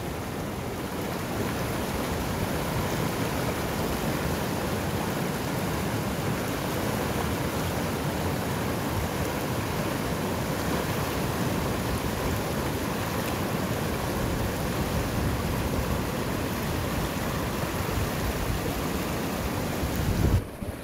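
Rushing whitewater of a fast, swollen mountain river pouring over rocks in rapids: a steady, even noise. Near the end a brief low rumble, then the sound drops off suddenly.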